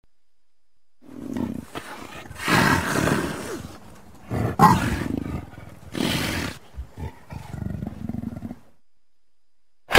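Snow leopard calling: several long, loud cries in a row, starting about a second in.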